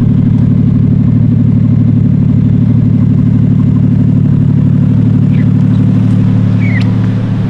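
Nissan 240SX engine idling steadily with an even low pulse.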